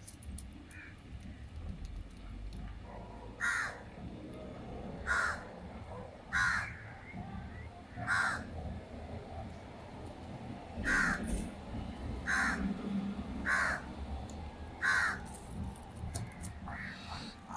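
A bird calling over and over outdoors, about nine short calls spaced one to two seconds apart, over steady low background noise.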